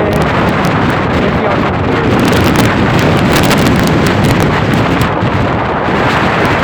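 Strong hurricane wind blasting across the microphone: a loud, steady rushing roar with many crackling pops through the middle of it.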